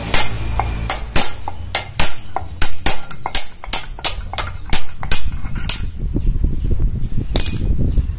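Hammer tapping on metal, about three blows a second, that stops about six seconds in, then one more blow near the end.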